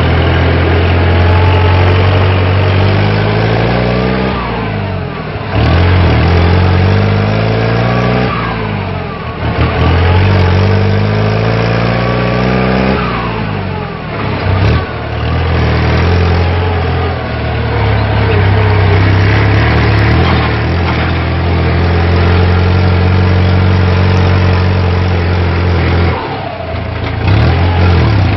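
Kubota M8540 tractor's four-cylinder diesel engine running through a modified aftermarket exhaust while driving. Its revs climb and then drop away sharply about four times.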